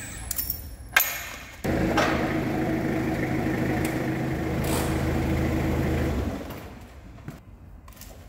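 A workshop electric motor starts abruptly and runs steadily with a low hum for about four and a half seconds, then winds down. A sharp knock comes about a second in.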